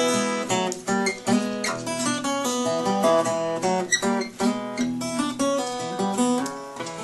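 Acoustic guitar fingerpicked in a ragtime blues style: an instrumental passage of quick plucked notes and bass notes, with no singing.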